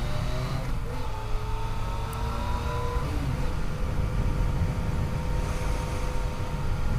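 Yamaha FJ-09's three-cylinder engine under way, rising in pitch and dropping back about a second in and again about three seconds in, then running steadily, with heavy wind rumble on the microphone.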